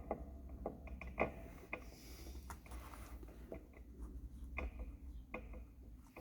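Faint, irregular light clicks and taps of small electronic kit parts being handled on a workbench, with a brief soft rustle a couple of seconds in.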